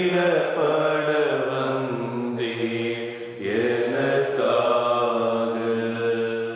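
Slow chanted hymn, a voice holding long, gliding notes in two phrases; the second phrase begins about three and a half seconds in.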